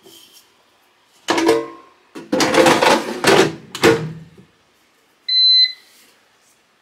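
Plastic basket and drawer of a Proscenic T21 air fryer clattering and scraping as the basket is set in and the drawer is pushed shut. About five seconds in, the fryer gives a single short electronic beep as it switches on.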